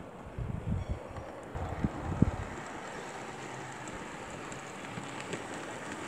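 Wind gusting on the microphone for about the first two seconds, then the steady running noise of an OO scale Hornby model train moving along its track.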